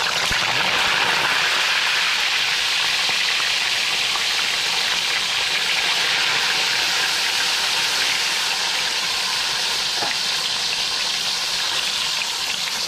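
Whole tilapia frying in hot oil in a wok: a steady sizzling hiss of bubbling oil.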